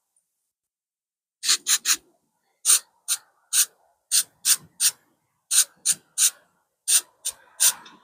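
Sandpaper rubbed in short, quick strokes over the filled spot on a plastic car console: about twenty scrapes in irregular succession, starting about a second and a half in.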